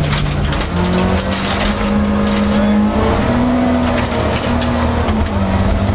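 Rally car engine running hard, heard from inside the cabin, its note holding and then jumping to a new pitch several times. Many short clicks and rattles from gravel on the stage road come through over it.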